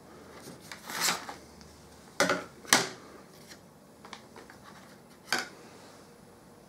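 Laser-cut wooden wall panels of a model kit handled and laid on a wooden table: a few sharp taps and clatters, the loudest two a little after two seconds in, with another just past five seconds.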